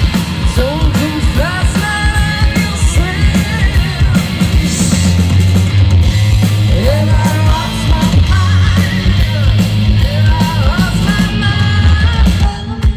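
A hard rock band playing live, loud, with a woman singing over heavy bass, drums and guitars. Near the end the full sound breaks up into separate hard hits.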